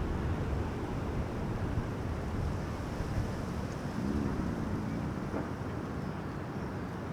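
Outdoor park ambience: a steady low rumbling wash with wind on the microphone. About four seconds in comes a brief, faint wavering tone.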